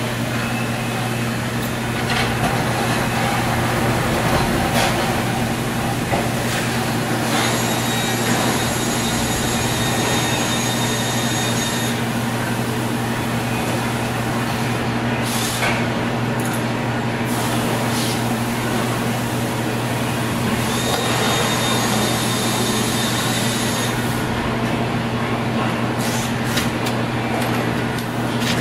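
A Dixie Narco 5591 vending machine's refrigeration unit running: a steady compressor hum with condenser-fan noise over it. A faint high whine comes in twice for a few seconds.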